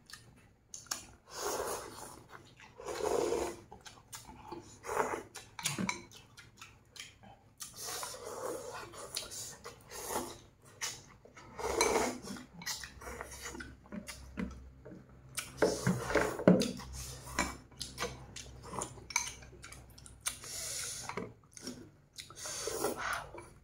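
Two people eating noodle soup: noodles and broth slurped from ceramic bowls, chopsticks clinking against the bowls, and chewing, in irregular bursts.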